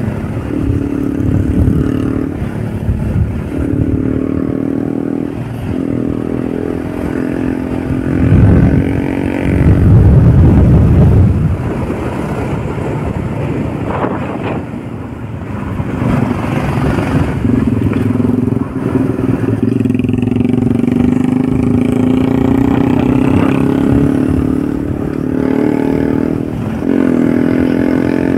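Motorcycle engine running on the move, its note rising and falling with the throttle. A loud low rumble swells over it about eight to eleven seconds in.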